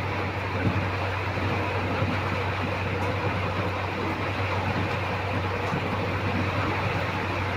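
Steady low hum with an even hiss over it, running without change.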